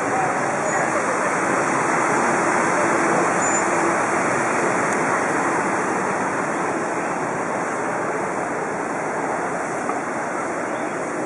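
Wind buffeting the microphone of a compact camera mounted on a moving bicycle, a steady rushing noise.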